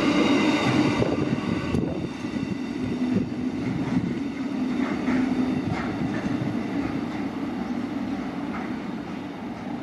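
Freight train wagons rolling past on the rails, a steady rumble of wheels that fades as the last wagons go by and the train draws away.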